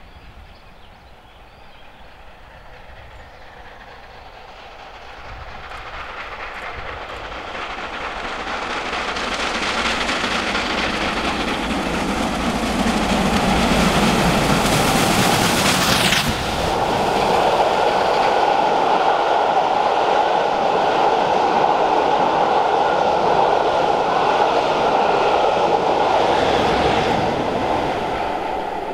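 Rebuilt Bulleid Merchant Navy class steam locomotive approaching at speed, its sound growing steadily louder until it passes about halfway through with a sudden change in pitch. The coaches follow with a steady rumble and clickety-clack of wheels on rail joints, fading near the end.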